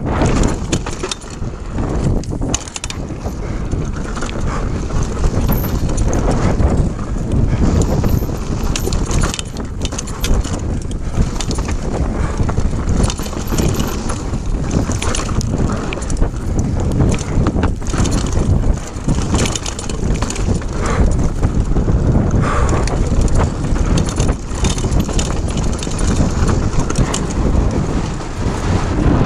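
Mountain bike ridden fast downhill on a dirt trail: a steady rumble of the tyres over the ground with constant rattling and knocks from the bike over bumps and roots.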